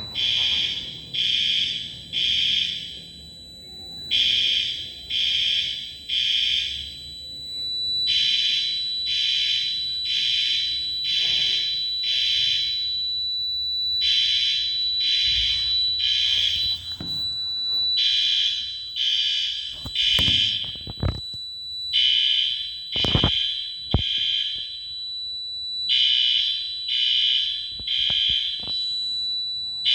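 Building fire alarm horns sounding the temporal-three evacuation pattern: loud, high-pitched beeps in groups of three, repeating about every four seconds, during a fire alarm system test. A steady high tone runs under the beeps, and a few sharp knocks come about two-thirds of the way through.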